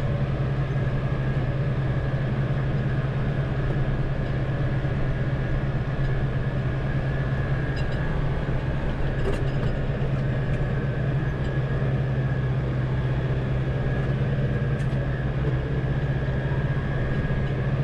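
Tractor engine running steadily under mowing load, heard from inside the cab: an even low drone with a faint steady whine above it.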